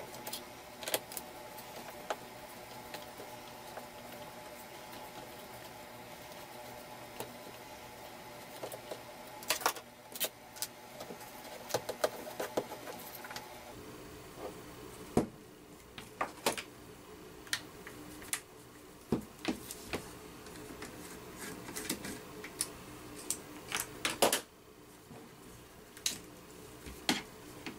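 Scattered clicks and taps as a cordless impact driver's plastic housing is handled and its case screws are taken out and set down, over a faint steady hum.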